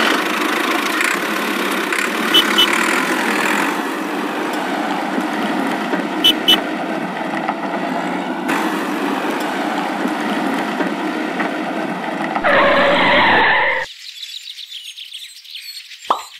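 Toy tractor running along asphalt, its small motor whirring steadily with gear and wheel noise and a double click twice. Near the end a louder, higher sound lasts just over a second and then cuts off, and a short falling tone follows.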